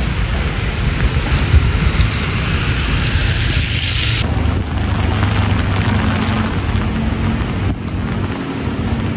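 Heavy rain falling as a steady hiss. About four seconds in the sound changes abruptly, and a low hum with a faint steady tone runs beneath the rain.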